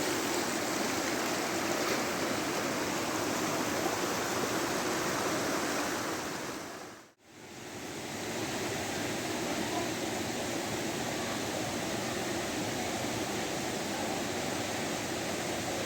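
Steady rushing of a waterfall. The sound fades out to near silence about seven seconds in and fades back up within about a second.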